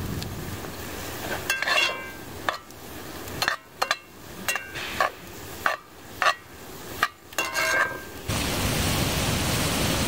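Metal spoon stirring ground turkey, red peppers and freshly added spices in a cast-iron skillet, scraping and clinking against the pan with short rings. About eight seconds in it gives way to a steady sizzle of the meat frying.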